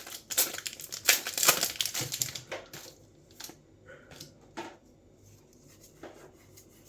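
Trading-card booster pack wrapper crinkling and tearing open for the first two seconds or so, then a few soft rustles.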